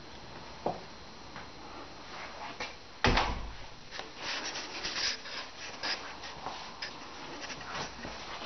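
A loud thump about three seconds in, then a run of scattered knocks, clicks and rustling.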